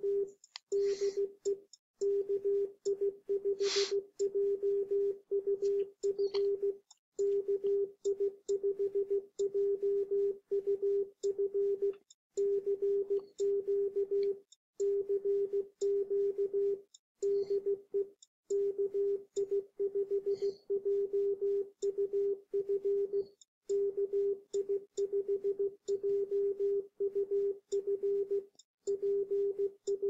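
Yaesu FT-991A transceiver's CW sidetone: a single steady tone keyed on and off in Morse code, sending the CQ call 'CQ CQ de KI5JUF KI5JUF PSE K' from a DM780 macro.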